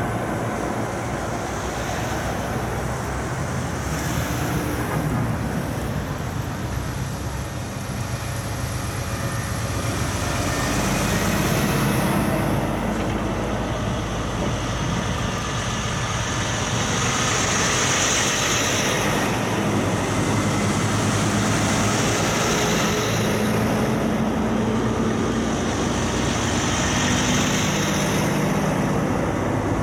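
Heavy diesel trucks in a convoy driving past on a road, with engines running and tyre noise. The sound grows louder about ten seconds in as the next trucks draw near, then stays steady.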